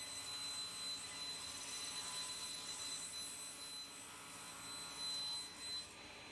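Sliding table saw running, its spinning blade giving a steady high-pitched whine over a hiss. The whine stops a little before the end.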